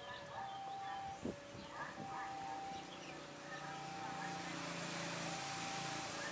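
A railway level-crossing alarm sounds its two alternating tones, switching about every second, while a CC201 diesel-electric locomotive approaches, its engine note and a rising hiss growing from about four seconds in. Birds chirp, and a brief sharp sound comes about a second in.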